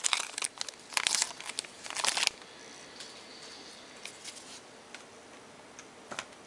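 A 2012 Topps Archives baseball card pack wrapper crinkling and tearing open for about two seconds, followed by a few faint taps as the cards are handled.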